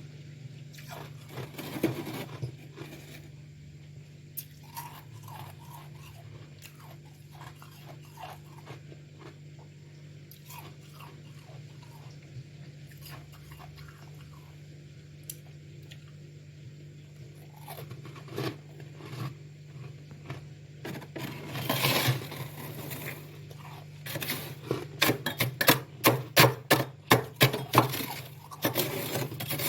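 Freezer frost being chewed and crunched close to the microphone: scattered faint crackles at first, then a run of loud, rapid crunches several times a second near the end.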